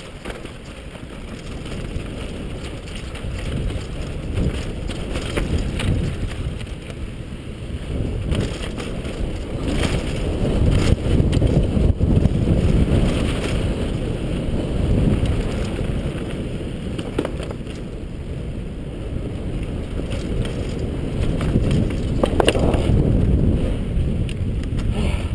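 Wind buffeting the microphone as a low, steady rumble, with a few brief knocks or rattles.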